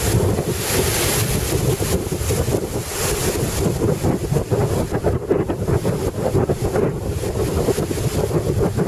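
Strong wind buffeting the microphone over the rush of breaking surf, loud and gusting unevenly, in a 25-knot westerly.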